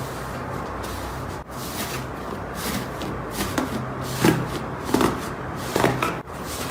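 Slime being handled, squeezed and pressed, with sticky squishing and crackling pops, the loudest three about four, five and six seconds in.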